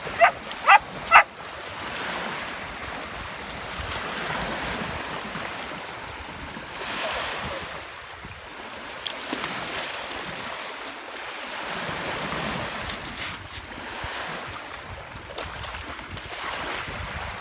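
A dog barks three quick times in the first second or so, then small lake waves wash and lap on a pebble shore, with wind buffeting the microphone.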